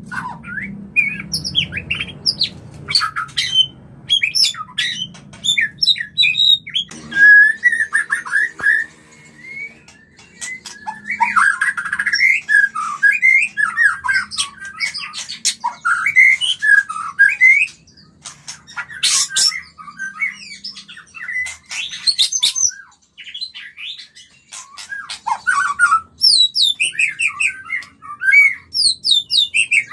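White-rumped shamas giving their mating calls: fast, varied whistles and chattering notes in bursts with short pauses. This is the courtship calling of birds in breeding condition.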